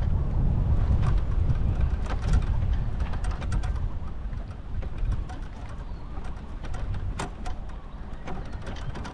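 Wind buffeting the microphone, a low rumble that eases after about four seconds, with scattered light clicks and birds calling in the background.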